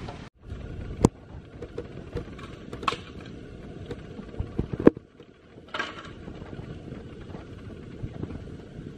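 Machete chopping green bamboo: a handful of sharp knocks, the loudest about a second in and again near five seconds, over a steady rushing background noise.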